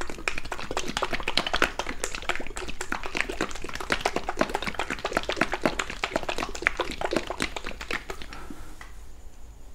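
A plastic bottle of Slime tire sealant shaken hard to mix the sealant, giving a fast, irregular run of knocks and rattles that stops about eight seconds in.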